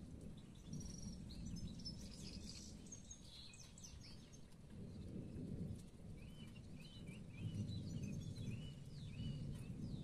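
Songbirds chirping and calling, with a run of short repeated calls in the second half, over a low rumble of distant thunder that swells and fades.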